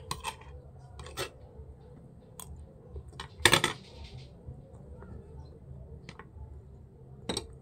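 Metal spoon clinking and scraping against a ceramic plate while eating, a handful of sharp clicks with the loudest about three and a half seconds in.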